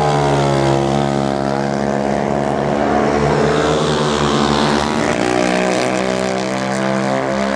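Racing quad engines running hard at high revs, the nearest a tuned Yamaha Raptor 250 single-cylinder four-stroke, holding a fairly steady pitch that sags briefly and climbs again as the rider lets off and gets back on the throttle through a turn.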